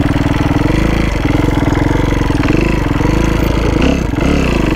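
Kawasaki KX250F dirt bike's four-stroke single-cylinder engine running steadily as the bike is ridden slowly over a gravel track. Its pitch wavers a little with small throttle changes near the end.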